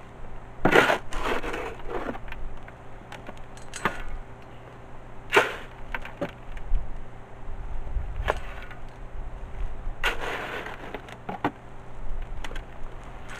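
Shovel scraping and scooping concrete mix in a metal wheelbarrow and dumping it around a fence post to pack it, with an irregular scrape or knock every second or two.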